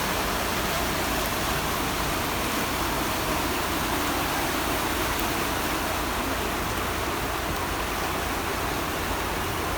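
Steady rush of floodwater from the swollen Malacatos River in spate, an even, unbroken wash of noise.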